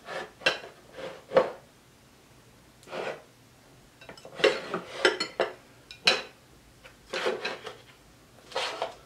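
Plates and cutlery handled at a table: irregular clinks and scraping noises, with a few sharp clicks among them and short pauses between.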